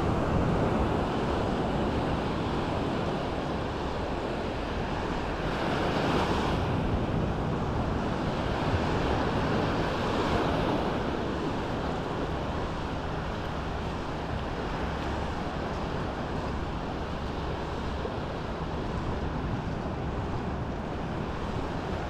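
Small waves washing in on a sandy beach, with wind rumbling on the microphone. The wash swells and fades, loudest about six and ten seconds in.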